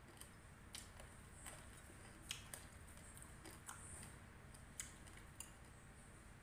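Faint, irregular light clicks of a metal spoon and fork against bowls, over near-silent room tone.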